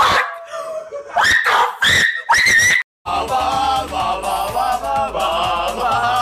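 Excited shouting and shrieks from a group of young men, with sharp rising pitches, cut off abruptly about three seconds in. Background music with a melodic line then takes over.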